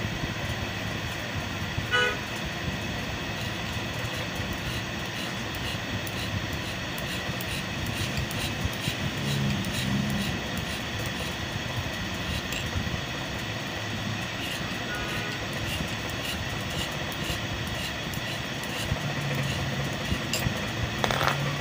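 Steady background traffic noise with a short horn toot about two seconds in, over the faint scrape of a hand file worked along the steel cutter plate of a Juki buttonhole machine, dressing the cutter so it cuts the bobbin thread cleanly.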